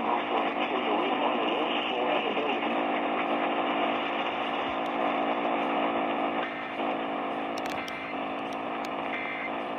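AM radio static: a steady hiss and hum from the receiver, with no programme audio.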